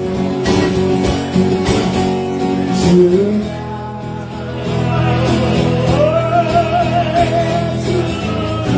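Acoustic guitar strummed under a voice singing long held notes with vibrato, without clear words, as a live song winds down.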